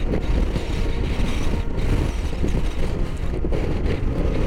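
Strong gusting wind buffeting the microphone over a Honda Africa Twin CRF1000L's parallel-twin engine running as the motorcycle rides along a gravel road.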